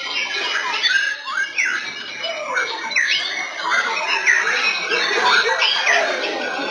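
White-rumped shamas singing: loud, varied whistled phrases with quick rising and falling glides, several birds overlapping.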